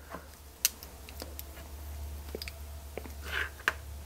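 Scattered small clicks and handling sounds as a hot soldering iron is pushed through layered nylon webbing to melt a hole, with a short hiss about three and a half seconds in, over a low steady hum.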